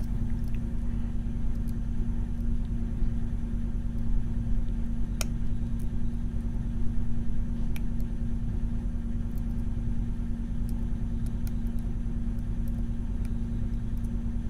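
A steady low hum and rumble, with a few faint, sharp clicks of a lock pick and tension wrench working the pins of a Mul-T-Lock Junior pin-in-pin lock.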